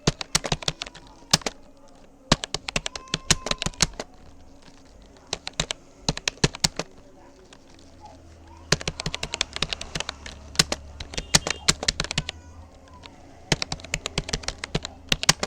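Rapoo computer keyboard being typed on fast in runs of rapid key clicks, broken by brief pauses of about a second.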